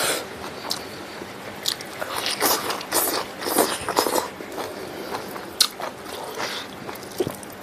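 Close-miked chewing and mouth sounds from eating a meal of smoked pork and rice by hand: irregular wet smacks and crunchy bites.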